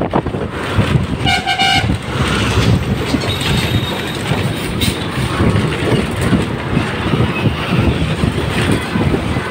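Steady rumble of road and wind noise from a moving vehicle in bridge traffic. A vehicle horn honks once, briefly, about a second in.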